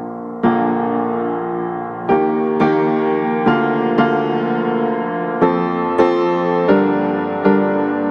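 Background piano music: sustained chords with new notes struck about every half second to second and a half.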